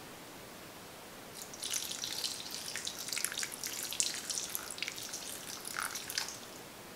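Milk poured in a thin stream from a small metal jug onto white chocolate chips in a glass bowl, splashing and trickling for about five seconds; it starts about a second and a half in and tapers off near the end.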